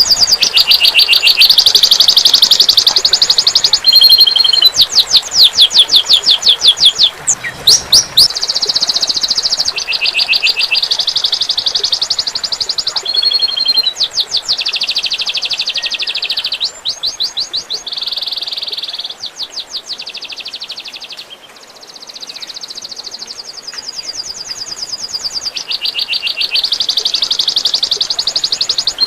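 Songbird singing continuously in loud, high phrases, many of them rapid-fire trills ('tembakan'), one phrase after another with hardly a break and a dip near the middle. Water trickles faintly underneath.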